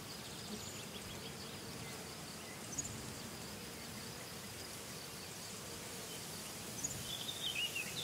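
Quiet meadow ambience: a steady, high insect chirring, with a few short bird chirps, a brief cluster of them near the end.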